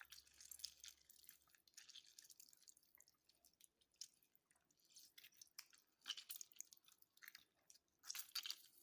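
Faint wet squishing and dripping of a lemon half being squeezed by hand into a bowl of raw sliced chicken, with scattered small crackles that come a little louder near the end.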